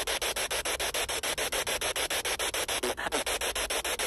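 P-SB7 Spirit Box speaker sweeping down through the FM band: a steady hiss of radio static chopped into short pulses about ten times a second as the receiver steps from one frequency to the next.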